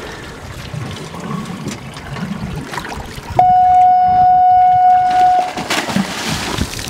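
A loud, steady electronic beep, about two seconds long, starting suddenly about halfway through and blanking out all other sound while it lasts, in the manner of an edited-in censor bleep. After it, water spray hisses off the boat's hull.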